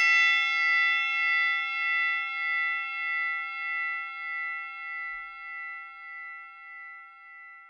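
A ship's bell, struck once just before, rings on with several overtones and fades slowly with a gentle wavering pulse.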